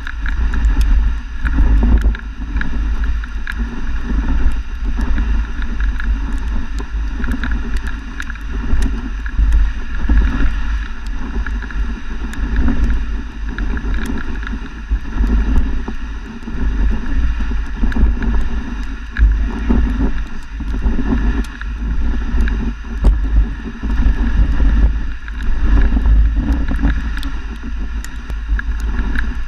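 Dog sled moving over snow: a steady rushing and scraping from the runners, with wind buffeting the microphone in a heavy, uneven rumble.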